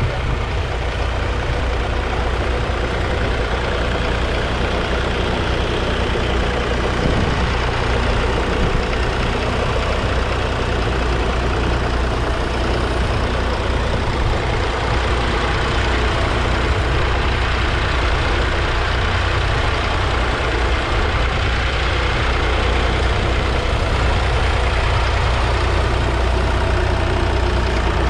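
1960 Massey Ferguson 35's 2.5-litre three-cylinder diesel engine running steadily as the tractor pulls a two-furrow mounted plough through the soil.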